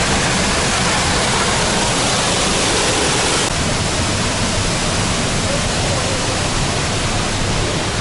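Steady loud rush of the Upper Düden waterfall, heard from the cave passage behind the falling water. The hiss drops a little about three and a half seconds in.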